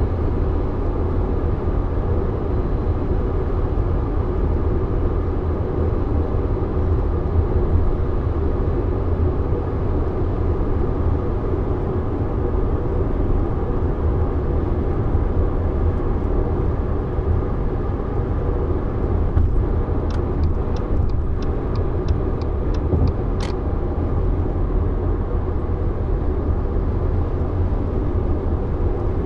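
Steady low rumble of road and wind noise from a 2021 Subaru Forester driving at highway speed. About two-thirds of the way through, a short run of quick, even ticks ends in one sharper click.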